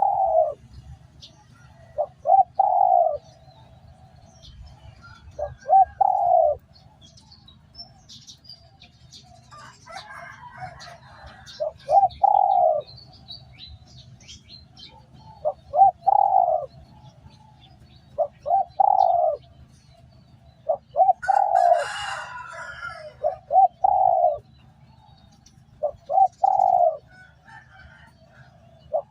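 Spotted dove cooing: a repeated phrase of two short notes and a longer falling coo, about every three to four seconds. Small birds chirp faintly in the background over a low steady hum.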